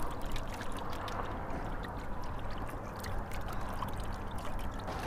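Water trickling and lapping against a kayak hull, with scattered light clicks and ticks.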